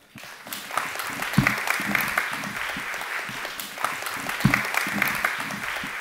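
Audience applauding, with steady dense clapping. Two low thumps come through it, the first about a second and a half in and the second three seconds later.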